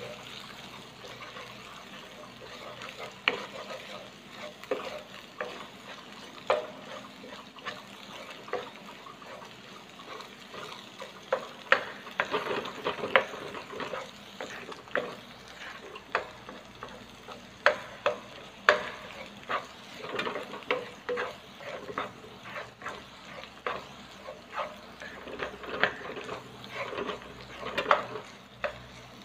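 Wooden spatula stirring and scraping scrambling eggs in a non-stick frying pan, with irregular sharp knocks of the spatula on the pan, more frequent in the second half, over a light sizzle of frying.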